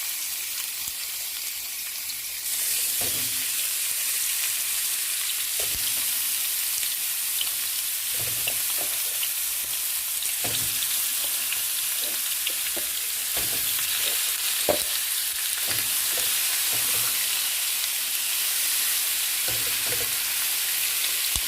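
Chicken wings frying in hot oil in a pan: a steady sizzle that gets louder about two and a half seconds in, with scattered soft knocks.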